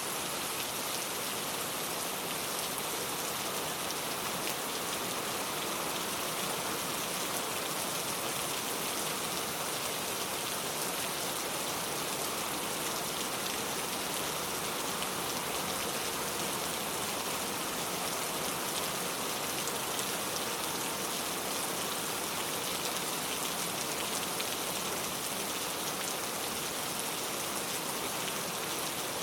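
Steady rain falling, an even hiss of drops with no pauses or changes.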